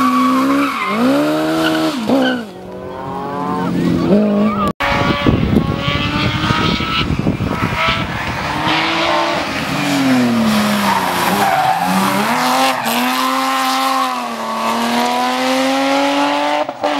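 Historic competition cars, a Citroën 2CV first and a BMW E30 last, driven hard one after another: engines revving up and dropping back through the gear changes. The sound breaks off sharply about five seconds in.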